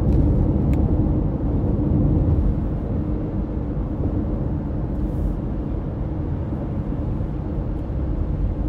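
Steady low rumble of road and engine noise heard inside a moving car, easing slightly about two and a half seconds in.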